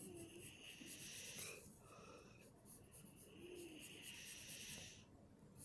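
A person breathing heavily close to the microphone: two long, quiet breaths, the second and longer one starting about two and a half seconds in.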